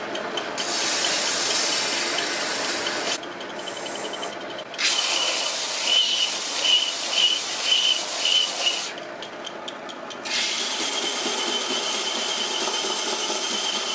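Homemade plywood 6x48-inch belt sander running while a wooden block is pressed against the moving sanding belt. The sanding hiss comes in three long stretches, and the quieter running of the belt and motor shows through in the short breaks, about three seconds in and about nine seconds in.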